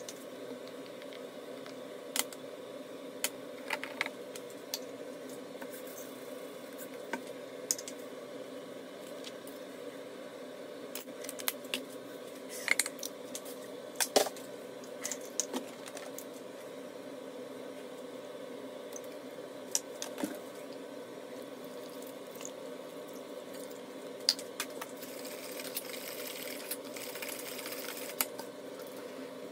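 Kitchen utensils at work: scattered clicks and clinks of plastic measuring cups and a spoon against a non-stick pot over a steady low hum. Near the end, a hand whisk beats chocolate batter in the pot, a quick rustling scrape that lasts a few seconds.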